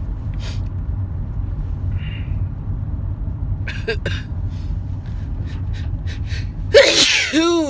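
A steady low rumble, with a person's loud gasping exclamation near the end that rises and then falls in pitch.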